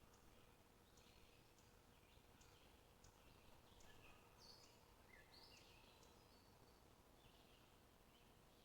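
Faint birdsong: many short, high chirping notes from small birds, some held briefly at one pitch, over a steady low hiss.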